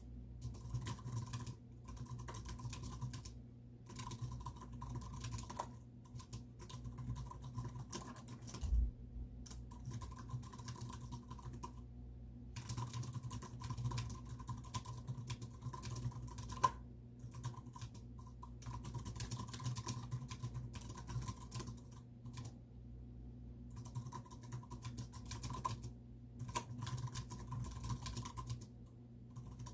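Typing on a computer keyboard: runs of quick keystrokes lasting a few seconds each, broken by short pauses. One dull thump about nine seconds in.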